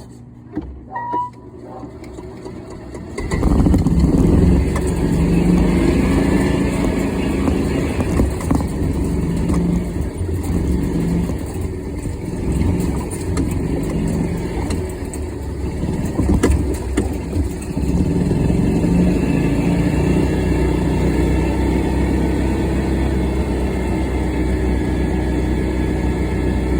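Club Car DS gas golf cart's engine starting about three seconds in as the cart pulls away, then running under load with its pitch rising and falling on a test drive, just after an oil change.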